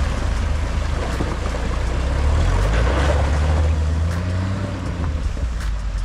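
A car driving on a rough dirt road, its engine and tyres giving a steady low rumble with wind noise over the microphone.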